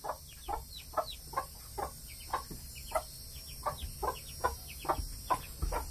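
Hens clucking: a steady run of short clucks, about two or three a second.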